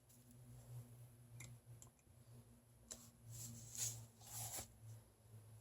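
Near silence: a faint steady hum with a few small clicks and two or three short soft hisses, handling noises from working with ink bottles.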